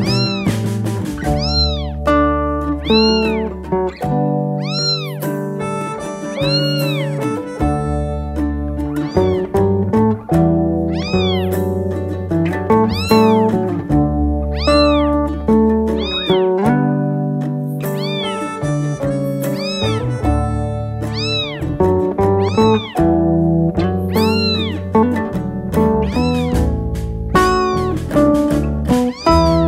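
A very young kitten mewing over and over, short high-pitched mews that rise and fall, about one every second or two. Background music plays throughout.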